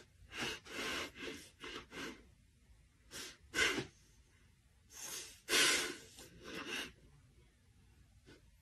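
Close sniffing and snorting breaths through the nose, in about ten short bursts: a quick run of five in the first two seconds, two around the middle, and three more, the loudest, a little past halfway.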